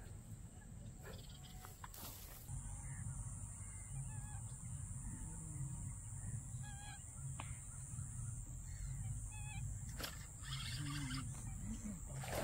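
Faint bird calls: a few short, wavering notes spread through the middle, over a steady high-pitched drone and a low rumble.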